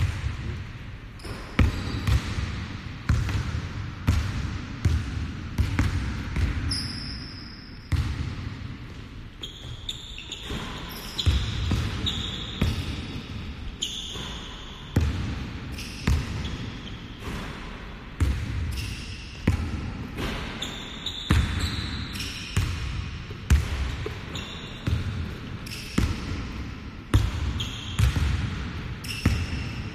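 Basketball shoes landing on a hardwood gym floor in repeated light hops, about two a second, with short sneaker squeaks. The hopping eases off briefly about a third of the way in.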